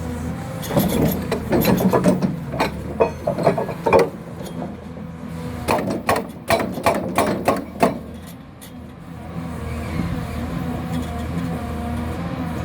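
Excavator-mounted hydraulic breaker hammering in uneven spells over the steady drone of the excavator's diesel engine. The first spell runs from about one to four seconds in and the second, denser one from about six to eight seconds. The strikes are irregular, which the owner takes for poor breaker performance, with the fault in either the breaker or the excavator.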